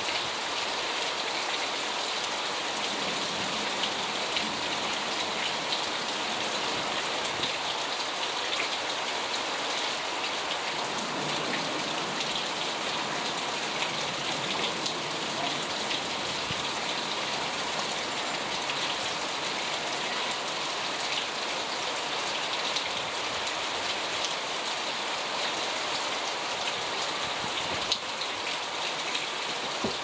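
Heavy rain falling steadily, with scattered close taps of drops striking nearby surfaces.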